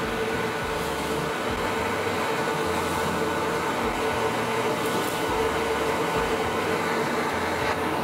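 Drill press running and boring a row of holes in a wooden strip, with a dust-extraction vacuum pulling through a hose at the bit: a steady machine noise with a constant hum.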